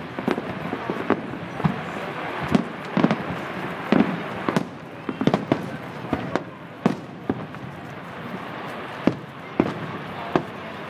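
Aerial fireworks bursting: a quick, irregular string of bangs, thinning out near the end to single booms about a second apart.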